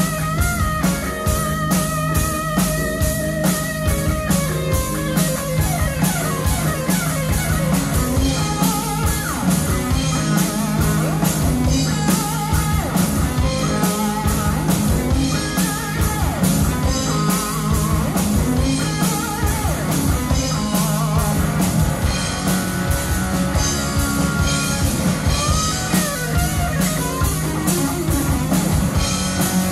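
Live rock band playing an instrumental passage: an electric guitar lead with bends and vibrato over bass guitar and a drum kit.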